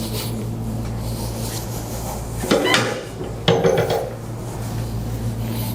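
Chiropractic adjustment of the sacroiliac joints, sacrum and lumbar spine with the patient lying face down: two short, sharp knocks about a second apart, the first about two and a half seconds in, over a steady low hum.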